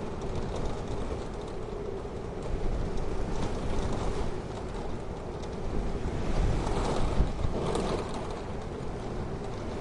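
Storm wind blowing in low, rushing gusts, swelling to its loudest about six to eight seconds in.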